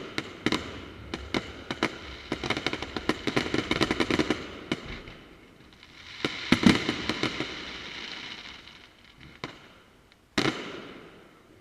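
Fireworks display: a rapid string of crackling pops and shell bursts, a heavier cluster of bursts about six seconds in that fades away slowly, then a single loud bang near the end that dies away over about a second.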